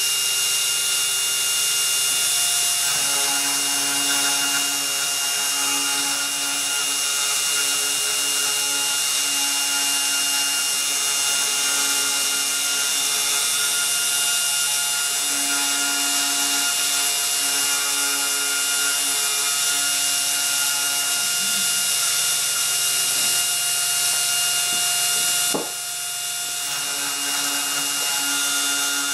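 CNC 3018 desktop router engraving laminate flooring: its spindle motor runs with a steady high whine while the conical engraving bit cuts. A lower stepper-motor tone comes and goes as the axes move. About 25 seconds in there is a click, and the sound drops a little for a second or so.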